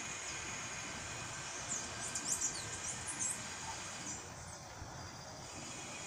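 Chestnut-capped blackbird (garibaldi) singing: a burst of quick, high, sharply gliding notes about two seconds in, lasting a little over a second, with a few fainter notes after. Under it runs a steady high insect drone.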